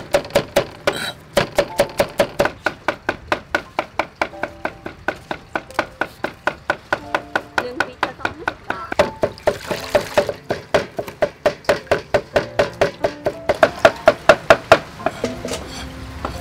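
Cleaver chopping garlic on a wooden chopping board: quick, even strokes, about five a second, that stop near the end.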